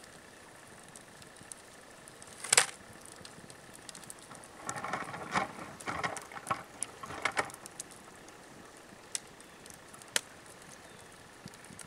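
Fatwood fire burnt down to embers, with scattered ticks and crackles and one sharp, loud pop about two and a half seconds in. In the middle comes a few seconds of rustling and scuffing, then single clicks.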